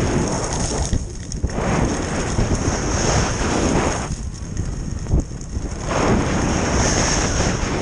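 Wind buffeting the microphone of a camera on a fast-moving skier, mixed with skis hissing and scraping over packed snow; the noise swells and eases as the skier turns.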